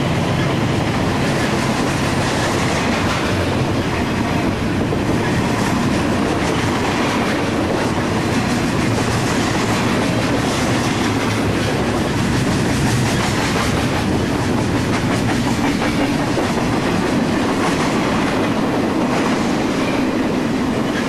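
BNSF intermodal freight train's double-stack well cars and trailer flatcars rolling past close by: steel wheels running on the rails with a loud, steady noise.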